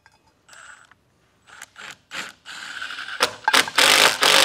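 Cordless impact driver driving 4-inch 5/16 GRK structural screws through a railing post's steel base plate into wood blocking. It starts in a few short bursts about one and a half seconds in, then runs loud and continuous near the end.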